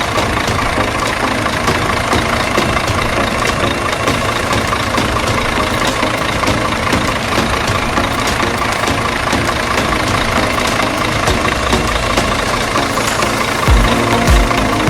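A heavy-vehicle engine idling steadily. Near the end, deep, evenly spaced low thumps come in.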